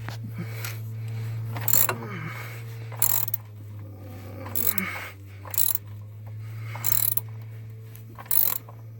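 Ratchet with a 17 mm socket clicking in short bursts, one every second or so, as it works the oil drain plug loose stroke by stroke.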